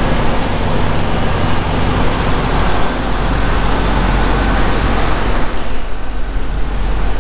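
Steady diesel-engine drone from parked heavy trucks and their trailer refrigeration units, an even low hum under a wash of noise.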